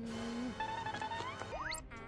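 Background music laid with synthesized sound effects: a held tone that stops about half a second in, then wavering tones and a fast rising sweep near the end, the kind used for a Transformers robot-to-truck transformation.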